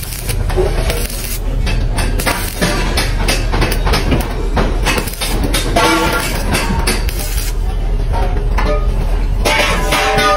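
Stick (arc) welding on a steel channel: the electrode's arc crackling and sizzling without a break, with a steady low hum underneath.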